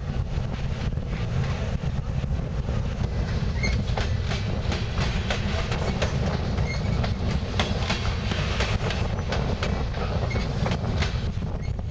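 Freight train of covered hopper cars and tank cars rolling past, its wheels clacking over rail joints in a long irregular run of sharp clicks over a steady low rumble.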